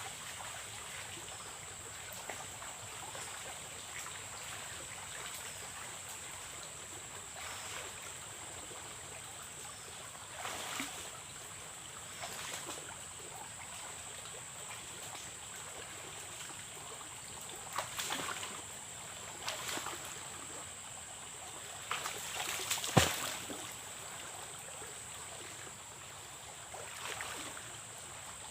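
River water running steadily, with a constant high-pitched whine above it. A handful of brief louder noises break through, the sharpest a click about three-quarters of the way in.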